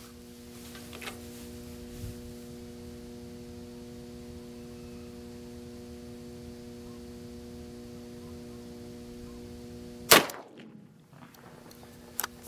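A single .357 Magnum gunshot from a single-shot H&R rifle barrel, one sharp loud crack about ten seconds in, over a steady low hum. A smaller click comes just before the end.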